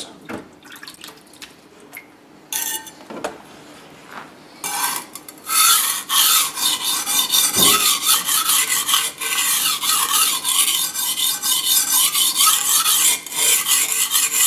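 Knife blade being stroked back and forth on a wet 240 grit Japanese whetstone, a loud gritty scraping repeated stroke after stroke. For about the first four seconds there are only light clicks and scrapes as the blade is turned over to sharpen the other side.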